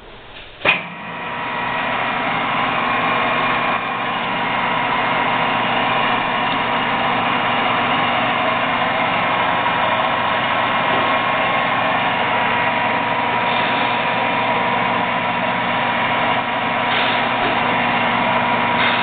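ENCO 13" x 40" metal lathe started with a clunk of its spindle control lever, then the motor and headstock gearing spin up over a second or two and run steadily with a constant whine.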